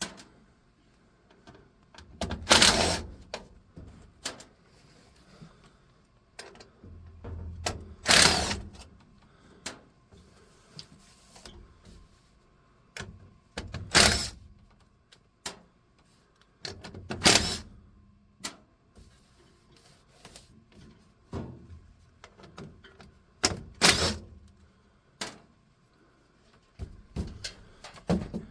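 Sheet-metal work on a 4-inch furnace vent pipe: scattered knocks and clanks, with about five loud ones a few seconds apart and many lighter clicks between them.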